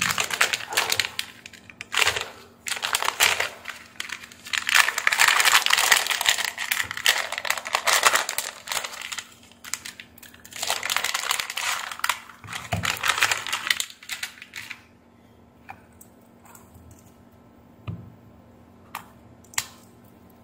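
A plastic zip bag crinkling and rustling in irregular bursts as it is handled and opened. The crinkling stops about fifteen seconds in, followed by a few light clicks and taps.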